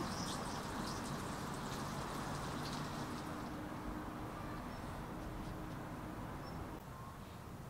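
Faint steady outdoor city ambience: a low hum over an even hiss, with a couple of tiny high chirps midway.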